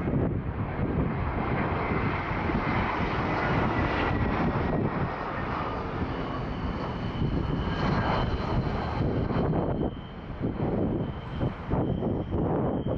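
Aircraft engine noise, a loud, steady rush with a faint high whine that grows clearer in the second half.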